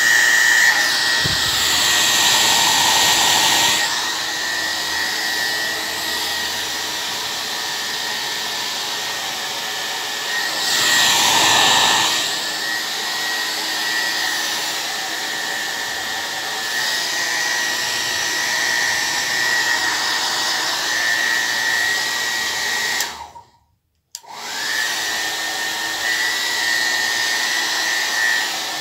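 Hair dryer running with a steady blowing hiss and a high whine, swelling louder twice. About 23 seconds in it cuts off for roughly a second, then spins back up.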